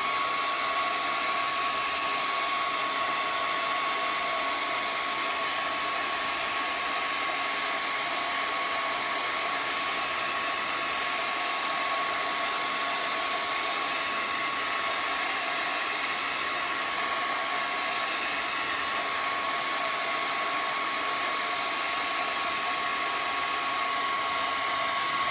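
Handheld hair dryer blowing steadily with a constant whine, drying freshly applied chalk paste on a silkscreen stencil; it cuts off at the very end.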